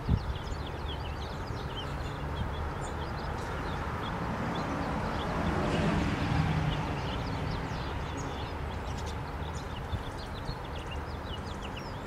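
Small finches, pine siskins and goldfinches, calling with many short, high chips and twitters. Beneath them is a steady low rumble that swells in the middle.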